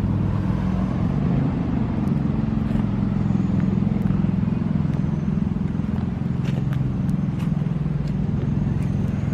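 Steady low hum of a motor vehicle engine idling nearby.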